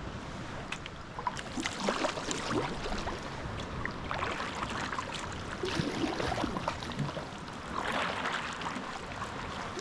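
Sea kayak being paddled: irregular splashes of the paddle blades in the sea, with water gurgling around the boat.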